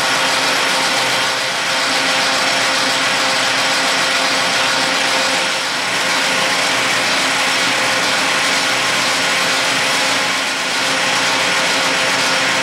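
Metal lathe running, its three-jaw chuck spinning a brass rod while a cutting tool faces the rod's end: a steady mechanical whir of motor and gears with a constant hum, dipping slightly in loudness a few times.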